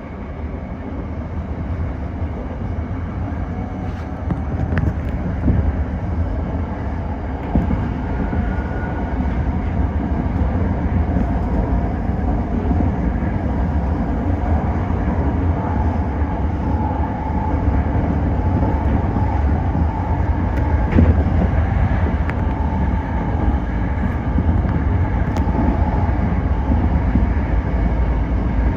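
Tōyō Rapid Railway 2000 series electric train running, heard from inside the leading car: a steady rumble of wheels on the rails that grows gradually louder.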